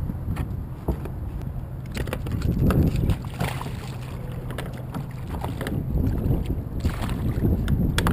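Wind buffeting the microphone and water lapping, with a speckled trout splashing at the surface beside a plastic kayak and scattered clicks and knocks of handling.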